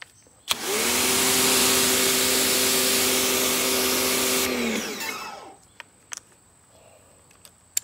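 Sun Joe SPX2688-MAX electric pressure washer spraying through an orange nozzle tip with a rubber cover. A click starts it, then comes a steady loud hiss of water over the pump motor's hum. The spray stops after about four seconds, and the motor winds down with a falling hum as the trigger is released.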